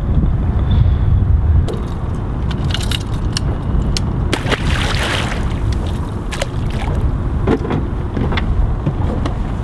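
Wind rumbling on the microphone in an open boat, with scattered clicks and knocks of handling, and a splash about five seconds in as a pike is thrown back into the water.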